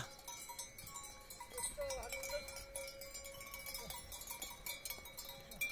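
Faint ringing of bells worn by grazing yaks, held tones with small clinks.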